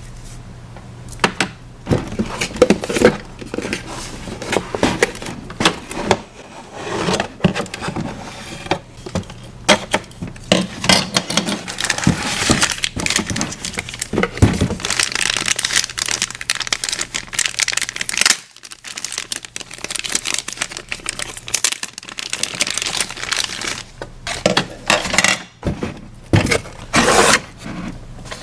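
Plastic packaging crinkling and tearing, with irregular clicks and knocks as small plastic toy pieces are unwrapped and handled.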